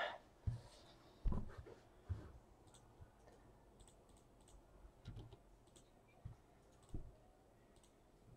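Faint, scattered computer keyboard and mouse clicks, with a few soft low knocks between them.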